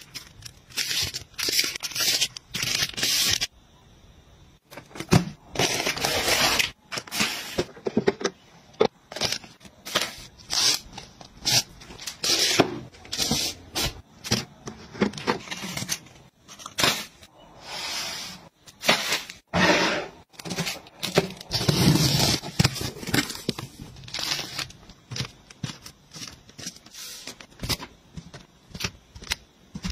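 Plastic wrapping on packs of toilet paper and kitchen paper crinkling and rustling in short, irregular bursts as the packs are handled and stacked on a shelf.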